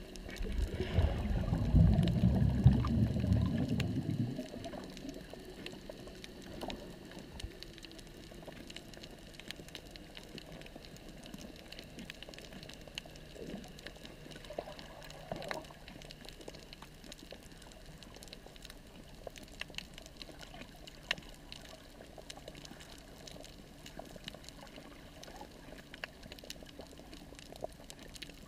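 Underwater sound of a coral reef: a loud low rush of bubbling, churning water for the first four seconds or so, then a faint steady hiss with scattered crackling clicks.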